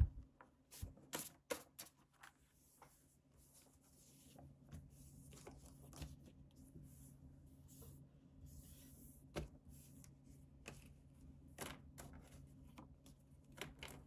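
Sticker sheets handled on a tabletop: a clear plastic sheet of letter stickers and paper-backed dot sticker sheets rustle, crinkle and slide, with irregular soft crackles and clicks. The sharpest crackle comes right at the start.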